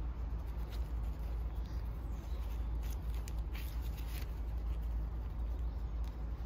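Faint scratches and light clicks of hands pressing and working the small plastic release clips on a Mercedes W169 A-Class front wiper blade, over a steady low rumble.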